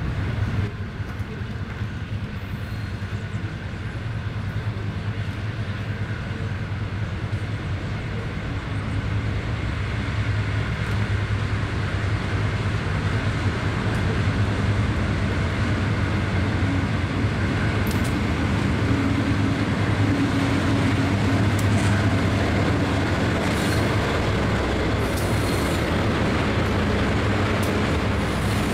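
Diesel locomotives of a freight train approaching and running past, a steady low engine drone that grows louder over the first ten seconds or so and then holds, as the locomotive draws alongside.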